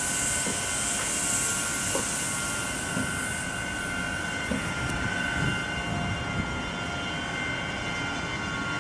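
SNCF Fret BB 27000 electric locomotive moving slowly, its traction equipment giving a steady high whine made of several tones, with a few soft knocks from the running gear. A high hiss fades away over the first three seconds or so.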